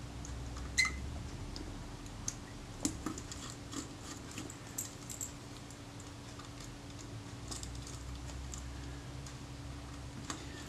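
Scattered small metallic clicks and taps of a small screwdriver and fingers working on parts of a Kodak Retina Reflex IV camera's top end, one click about a second in ringing briefly. A steady low hum runs underneath.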